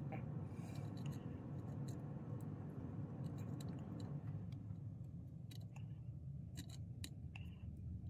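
Soldering iron melting regular solder into the pins of a Micro SD card connector to lower the joints' melting point: faint scattered crackles and ticks, thickest near the end, over a steady low hum.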